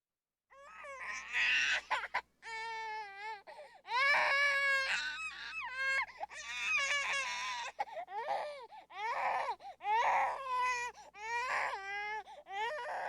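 Baby crying: a run of wailing cries with a wavering pitch and short catches of breath between them, starting about half a second in.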